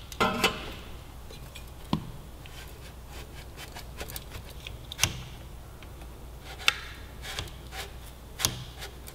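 Scattered metallic clicks, knocks and a scrape as a Yoshimura Alpha T exhaust muffler is slid and twisted onto a motorcycle's mid-pipe by hand.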